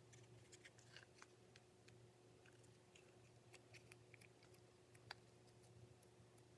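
Near silence: faint, scattered soft clicks and squishes of Play-Doh being pressed by hand into a plastic sand-toy mould, over a faint steady hum.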